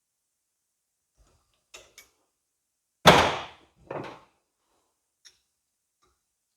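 Metal tool clicks and two sharp clanks, the loudest about three seconds in with a short ring after it, as a snap ring is worked into a hydraulic cylinder with snap ring pliers.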